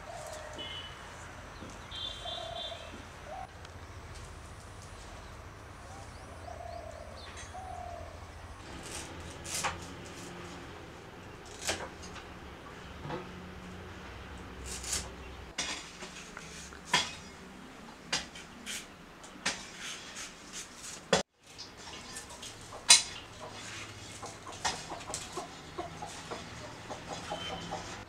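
Hens clucking and small birds calling. From about nine seconds in, scattered sharp knocks and clicks: raw green bananas being handled and set down, then a knife cutting peeled raw banana on a wooden board.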